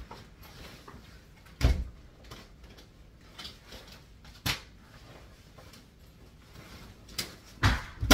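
Handling of school things taken out of a backpack: papers and folders rustling, with a few sharp knocks and thumps as items are set down, one about one and a half seconds in and several near the end.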